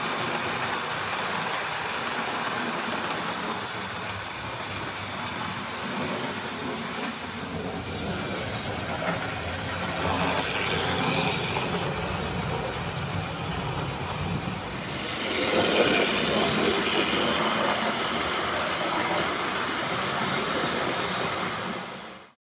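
Tri-ang/Hornby OO-gauge A3 'Flying Scotsman' model locomotive running on the track, pulling its coaches. The noise grows louder for a few seconds about two-thirds of the way through as the train passes close, then fades out at the end.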